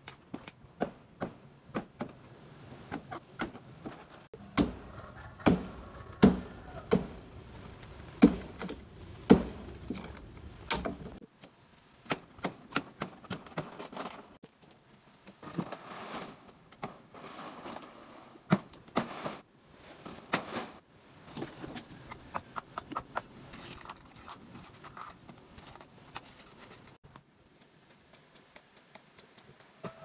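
A knife or machete chopping into a palm trunk: a run of sharp, uneven chops, loudest and closest together in the first third. Lighter knocks and rustling follow.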